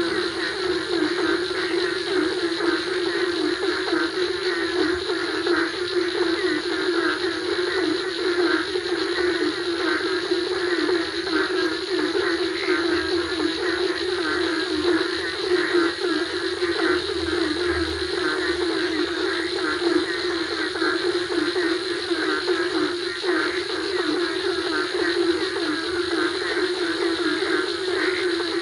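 A dense chorus of frogs calling in rapid, overlapping pulses after rain, with crickets and other insects trilling steadily at a higher pitch.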